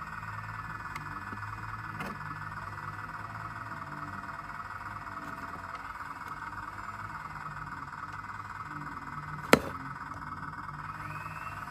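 A steady, high trilling chorus of calling animals, with a low hum beneath it and a single sharp click about nine and a half seconds in.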